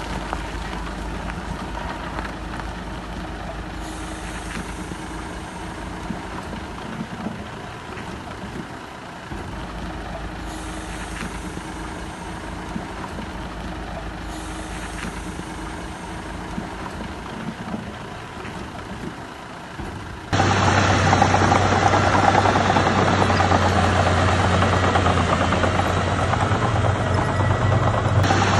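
Heavy diesel construction machinery running steadily. About two-thirds of the way through, the sound jumps abruptly to a much louder, closer engine with a strong low hum.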